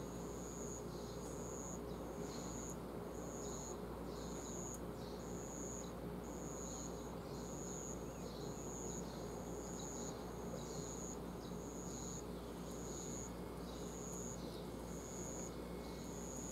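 Insect chirping at a steady rhythm, about one high-pitched chirp a second, over a low steady hum.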